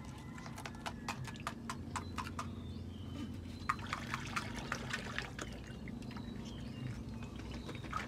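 Small splashes and drips of shallow water as sea urchins are rinsed and handled by hand, with a quick run of sharp clicks and taps that thins out after about five seconds.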